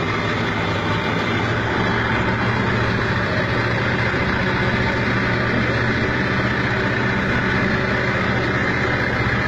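Fishing boat's engine running steadily, a low even hum under a hiss of wind and water.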